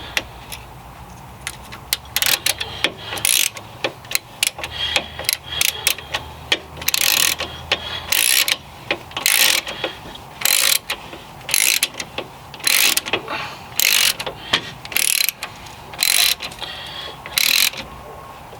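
Hand ratchet wrench clicking, tightening down bolts: scattered clicks at first, then short ratcheting bursts about once a second on each back-swing through the second half.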